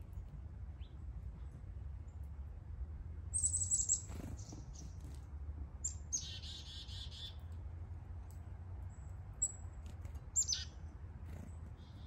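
Small songbirds calling: a quick run of high, falling notes about three seconds in, a buzzy call around six seconds, and a few short high chips near the end. A steady low rumble runs underneath.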